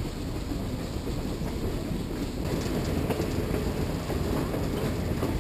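Open-air passenger car of the Skunk Train rolling along the track, heard from on board: a steady rumble of wheels on the rails with faint scattered clicks.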